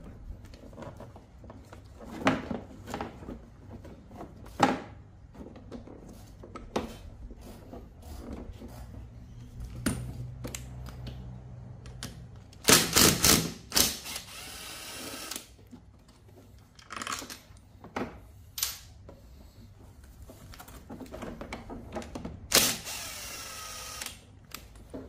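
Cordless power driver spinning out the scooter's transmission cover bolts in two short runs, one about halfway through and one near the end, each with a whining motor. Between the runs, scattered clicks and knocks of the tool and bolts being handled.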